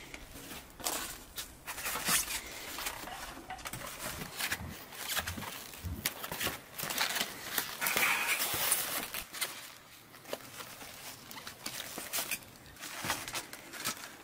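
Foam takeaway food boxes being picked up and set down on a large metal tray: a busy run of light clicks, taps and scrapes, with a brief rustling stretch about halfway through.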